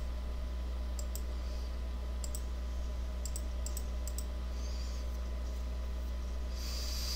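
A few faint computer mouse clicks, some in quick pairs, over a steady low electrical hum, with a short hiss near the end.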